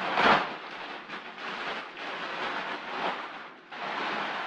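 Plastic packaging crinkling and rustling as a jacket is pulled open and out of its bag, with a loud crackle just after the start and further swells of rustling.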